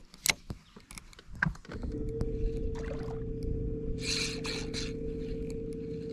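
A few knocks, then about two seconds in a boat's motor starts and runs at a steady hum with a clear steady tone.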